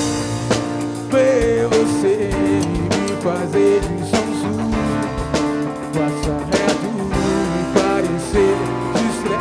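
Live band playing samba rock: electric guitar over bass guitar, drum kit and percussion, with drum hits at a steady pulse.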